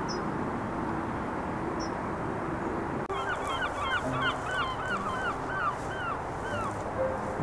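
Steady background hiss, then, after a cut about three seconds in, a bird calls a quick run of about ten short calls that come more spaced out toward the end.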